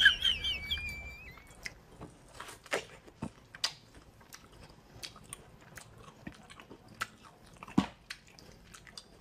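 Crisp fruit being bitten and chewed: scattered short crunchy clicks at irregular intervals.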